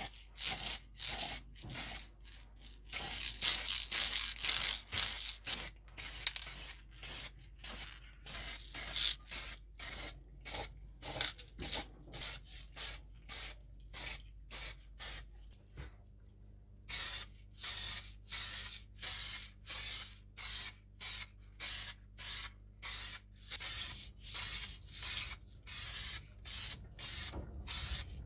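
Aerosol spray-paint can spraying in rapid short bursts, about two a second, with a brief pause just past halfway.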